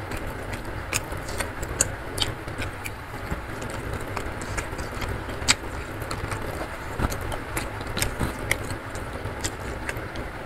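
Close-up eating sounds: chewing with wet smacks and clicks of the mouth, and fingers squishing and gathering rice and minced beef on a wooden tray for the next handful. A steady low rumble and hiss lies under it all.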